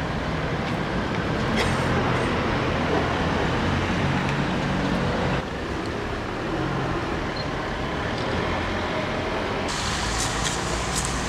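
Outdoor street ambience: a steady wash of traffic noise with a low engine hum, changing abruptly about five and a half seconds in and again near the end.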